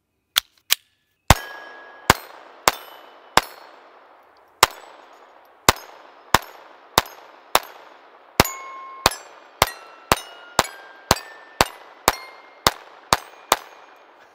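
Sig Sauer P322 .22 LR pistol fired about twenty times in a rapid string, each sharp crack followed by the ring of a hit steel target, the rings at differing pitches. The shots come faster in the second half, about two a second.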